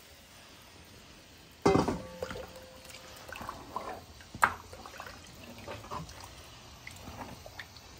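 Thin peanut butter soup sloshing and dripping as a spatula stirs it in a pot, with a sudden clank and a short ring about two seconds in and a sharp click a little after four seconds.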